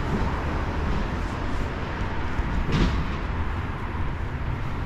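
Steady rushing noise with a deep, unsteady rumble underneath. It sets in suddenly just before and falls away right at the end.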